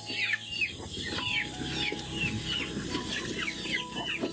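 Birds chirping over and over: short chirps that fall in pitch, about three a second.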